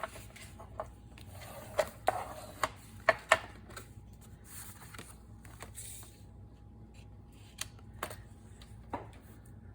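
Paper being slid and handled on a paper trimmer: soft rustling with scattered light taps and clicks, the sharpest a few seconds in.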